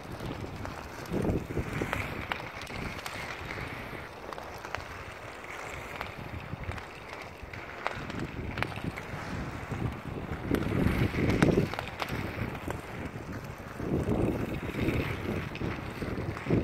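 Wind buffeting the microphone, rising in gusts about a second in, around the middle and again near the end, with a few faint sharp clicks.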